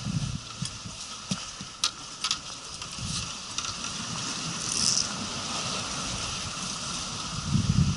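Wind buffeting the microphone over a steady outdoor hiss of moving air and water, with a few sharp clicks about two seconds in.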